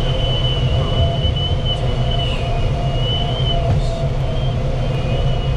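Steady rush and rumble of air streaming over a glider's canopy in flight. A high, wavering whistle-like tone comes and goes above it.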